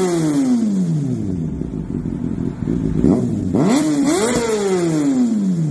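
Racing motorcycle engine revving twice. Each time the pitch climbs quickly, then winds down slowly.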